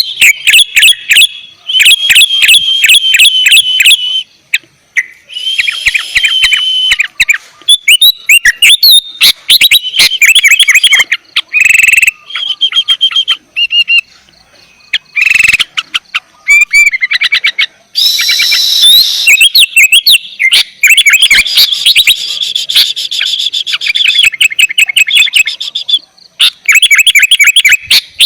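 Sooty-headed bulbul (kutilang) singing loudly: runs of rapid chirps and warbled phrases in bursts, broken by short pauses.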